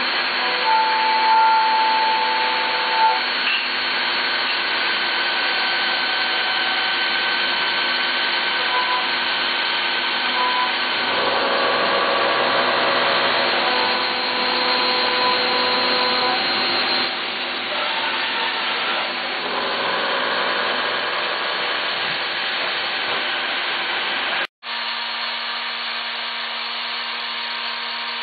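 A 2001 Mazak VTC250-50 CNC vertical mill running: a steady mechanical whir with several whining tones that shift a few times. The sound cuts out for an instant near the end and comes back slightly quieter, with a lower tone.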